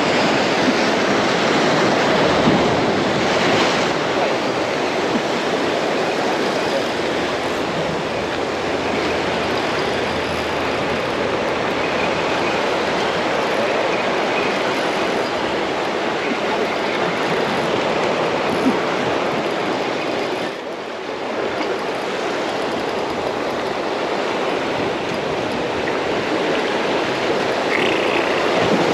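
Ocean surf washing on the beach: a steady rushing noise that dips briefly about two-thirds of the way through.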